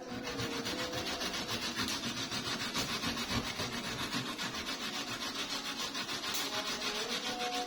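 Kencur (aromatic ginger) root being rubbed back and forth over a hand grater: a steady run of quick, even scraping strokes.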